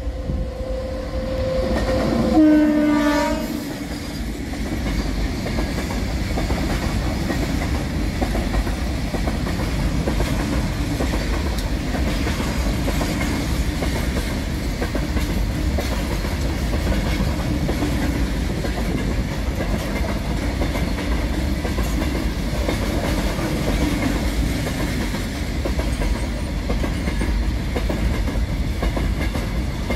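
Electric locomotive's horn sounding in the first three seconds or so, loudest as the locomotive comes by. After that comes the steady rumble and clickety-clack of loaded covered goods wagons rolling past on the rails.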